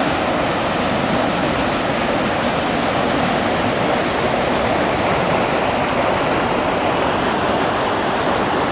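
Water rushing steadily out of a fish hatchery's concrete discharge channel, spilling over a small drop and churning into the river.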